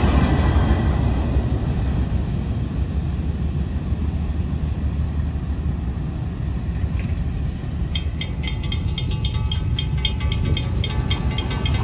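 Low rumble of a freight train's last cars rolling over the crossing, easing off as the train moves away. About two-thirds of the way in, the grade-crossing warning bell starts ringing, fast and regular, as the gates lift.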